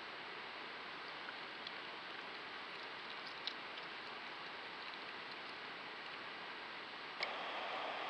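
Steady hiss of a trail camera's outdoor recording beside a stream, with a few faint ticks. About seven seconds in there is a click, and the hiss becomes louder.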